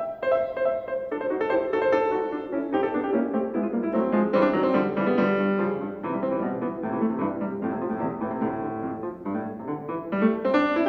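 Steinway grand piano played solo: a lively classical piece with many quick notes in the middle and upper range.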